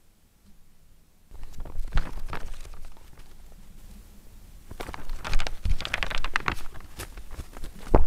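A fast, irregular run of small taps and clicks. It starts suddenly about a second in, eases off in the middle, and comes thick and fast again over the last three seconds.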